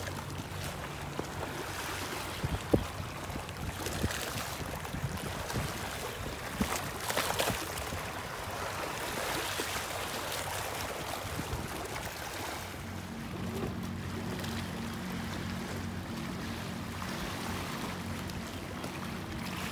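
Small waves lapping and splashing against a rocky seawall, with a sharp click a few seconds in. A steady low motorboat engine hum runs under it at the start and returns for the last third.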